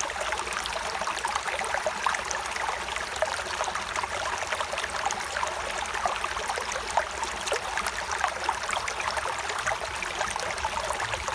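Shallow stream of clear water running and burbling steadily, with many small splashes and gurgles over a continuous rushing hiss.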